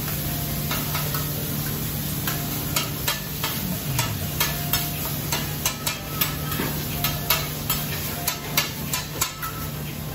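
Metal spatulas clacking and scraping on a flat-top griddle as yakisoba noodles are tossed and stir-fried, with the food sizzling. From about three seconds in the clacks come quick and sharp, two or three a second, over a steady low hum.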